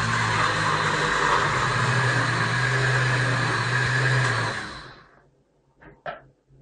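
Countertop jug blender running steadily at speed, puréeing a thick chicken-and-vegetable soup. The motor cuts off about four and a half seconds in and spins down.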